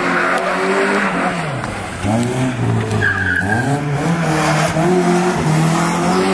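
Rally car engine driven hard: the revs fall away sharply, then climb again several times as it lifts and changes gear. A short tyre squeal comes about three seconds in.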